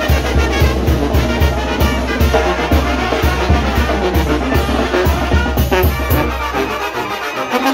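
Brass band playing a lively tune, trumpets and trombones over a steady beat in the bass; the bass beat drops out about seven seconds in.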